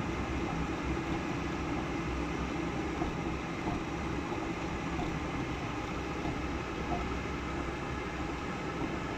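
A vehicle on the move: a steady mix of engine and road noise that holds even throughout.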